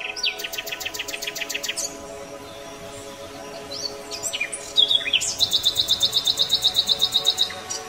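Birdsong: fast chirping trills, twice, the second longer and louder, with a few short whistled notes between them, over steady background music.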